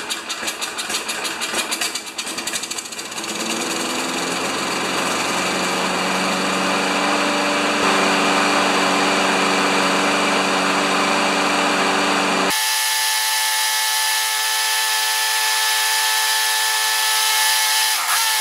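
Briggs & Stratton Quantum flathead engine on a Sears push mower running just after being started. It runs unevenly for about the first three seconds, then settles into a steady run.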